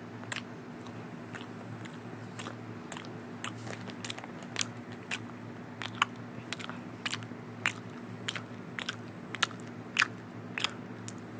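Plastic wrapper around a bagel crinkling in short sharp crackles, about two a second, as a plush toy is pushed into it to pretend it is eating.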